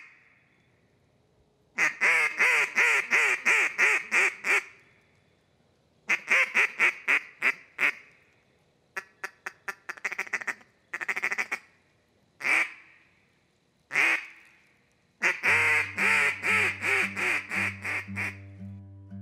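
Duck quacking in rapid runs of about four quacks a second, some runs ten or more quacks long, with a few single quacks between. Acoustic guitar music comes in near the end under the last long run.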